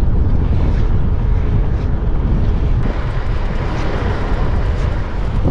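Wind noise on the microphone of a bicycle-mounted camera while riding along a road: a loud, steady rush, heaviest in the low end.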